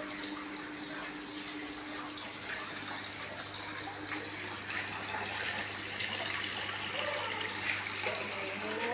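Aquarium filters running: water steadily splashing and trickling back into the tanks, with a low steady hum under it.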